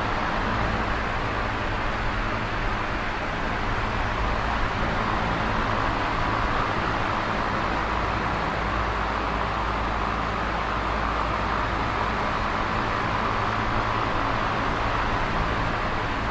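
Electric fan running steadily: an even rush of moving air over a low motor hum.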